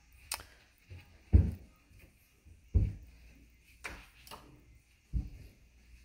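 Footsteps on a hardwood floor: three heavy low thumps about a second and a half apart, with lighter clicks between them.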